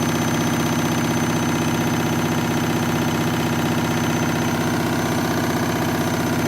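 Washing machine drum on a noisy spin, running at a steady high speed with an even, pitched drone.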